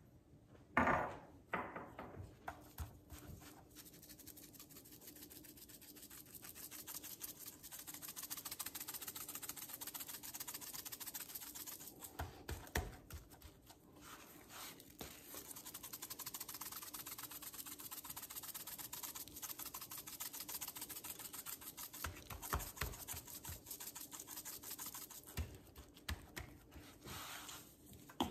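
Brown sugar shaken from a spice shaker onto a venison roast and rubbed in by a gloved hand against the meat in a metal pan: a steady, fine scratchy rubbing, with a sharp tap about a second in and a few knocks near the end.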